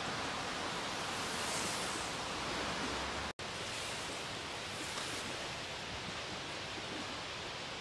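Steady wind-driven outdoor noise: rustling leaves and choppy lake water lapping at the shore, with gusts rising and falling. The sound cuts out completely for an instant about a third of the way through.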